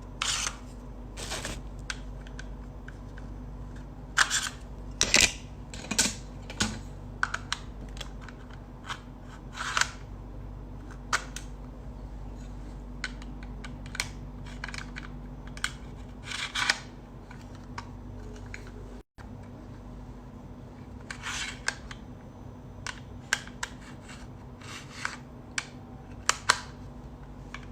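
Irregular sharp clicks and taps, some in quick clusters, over a steady low hum.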